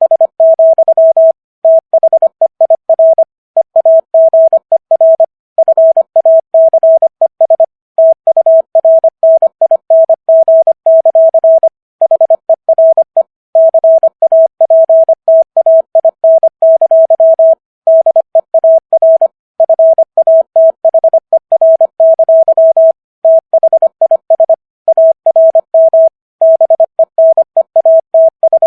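Morse code sent at 25 words per minute: a single steady beep tone keyed rapidly on and off in dots and dashes, with short pauses between letters and words.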